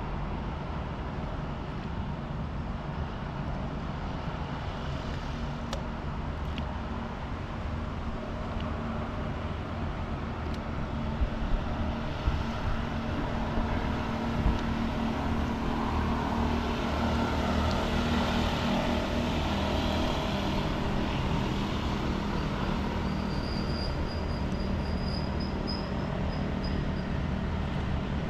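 A motor engine drone, low and steady, that grows louder around the middle and then holds. A few short knocks come in about halfway through, and a thin high whistle sounds near the end.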